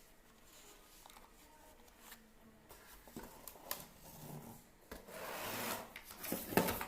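A plastic gaming keyboard being handled: faint rubbing and light clicks, then a louder, longer rubbing swish from about five seconds in.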